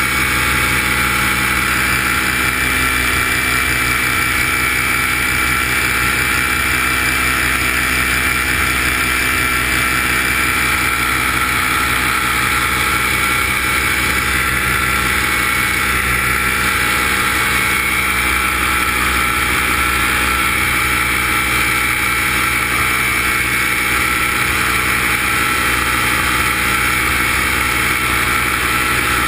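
Steady whine of the electric motors and propellers of a radio-controlled aircraft, heard from the camera it carries, holding an even pitch with a constant hiss beneath.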